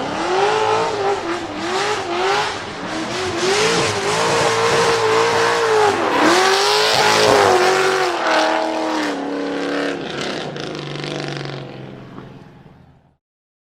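Nissan 200SX pickup's swapped-in 7.0-litre LS7 V8 being revved hard over and over, its pitch climbing and dropping every second or so. Near the end it steps down in pitch, fades and then cuts off.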